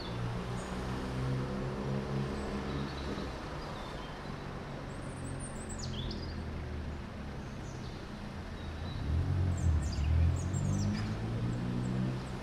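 Street ambience: motor vehicles passing with engines running, loudest and rising in pitch about nine to eleven seconds in, with birds chirping in short falling calls.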